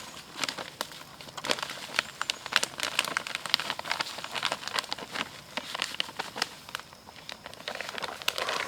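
Granular deer attractant with crushed grains being poured from its bag onto a pile of corn: a dense, irregular patter of small granules landing.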